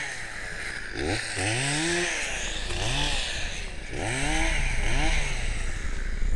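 Chainsaw engine revving up and down over and over, its pitch rising and falling about once a second, with a steady hiss behind it.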